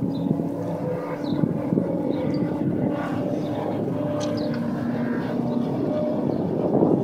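Race car engines running out on the circuit: a steady engine note that drops to a lower pitch about five and a half seconds in.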